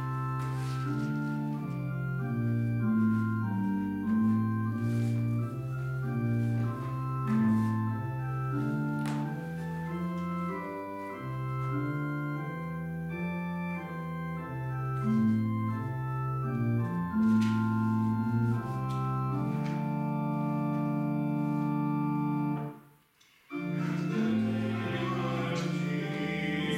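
Church organ playing the introduction to a hymn in slow, held chords; near the end a long chord is held and released, and after a short pause the hymn itself begins.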